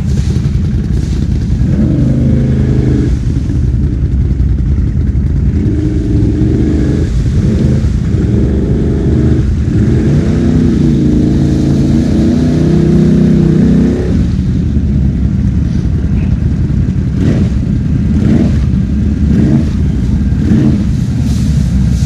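ATV engines running loud, one revving up and down repeatedly under load through much of the first two-thirds as a quad churns through a muddy, water-filled ditch, then settling to a steadier run.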